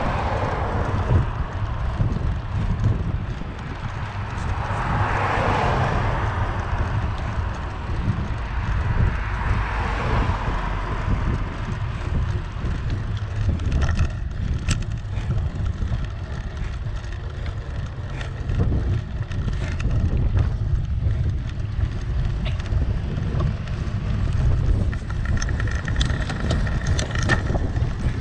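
Wind buffeting a helmet- or bike-mounted action camera while cycling along a road, with a constant low rumble. Passing traffic swells and fades three times in the first ten seconds, and a few light clicks come near the end.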